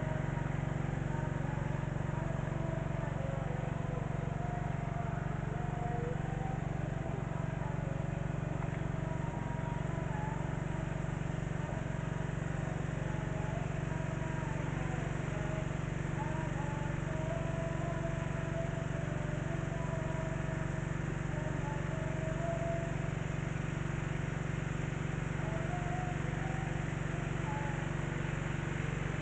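Small engine of an irrigation suction water pump, converted to run on LPG instead of petrol, running steadily at constant speed with an even hum.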